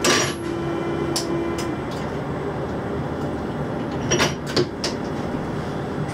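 Steady rumble and hum heard from the cab of a Berlin U-Bahn GI/1E train in a tunnel. A steady tone fades out after about a second and a half, and a few sharp clicks and knocks come at the start, about a second in, and twice around four seconds in.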